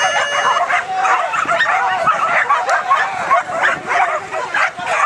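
Many excited flyball dogs barking and yelping at once in a dense, unbroken chorus during a race, with a brief steady tone at the very start.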